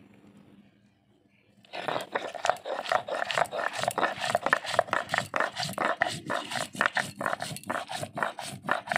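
Dried red chillies being ground on a stone slab with a stone roller (shil-nora): rapid back-and-forth rasping strokes of stone on stone, several a second, starting about two seconds in.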